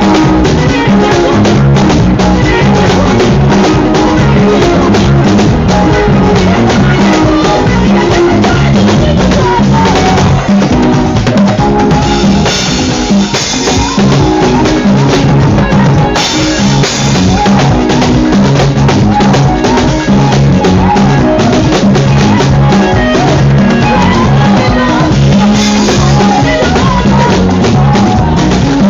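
Loud music with a drum kit keeping a steady beat, a bass line and other instruments.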